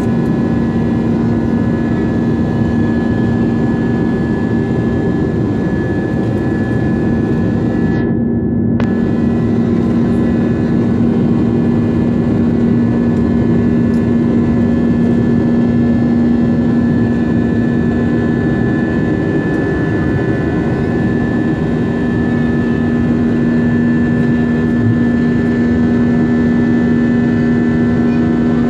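Airliner's turbofan engines heard from inside the cabin during the climb after takeoff: a loud, steady rush of noise with a low hum and a fainter high whine. The high part drops out for a moment about eight seconds in.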